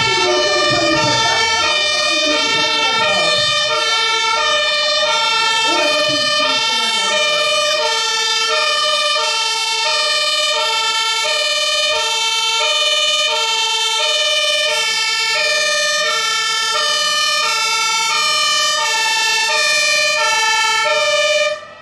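Fire engine's two-tone siren (German Martinshorn) sounding steadily, alternating between a high and a low note, as the truck drives up on an emergency run; near the end it cuts off suddenly.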